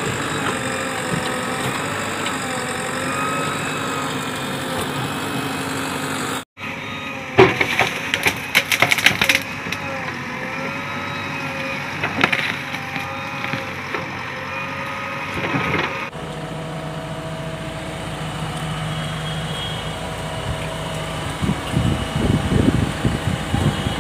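JCB backhoe loader's diesel engine running under load, its note wavering, as the backhoe bucket pushes into a bamboo clump. Bamboo culms crack and snap in rapid bursts from about a third of the way in, and again near the end.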